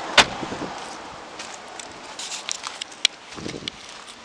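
A sharp clack from a car's latch about a fifth of a second in, then scattered light clicks and a second sharp click about three seconds in.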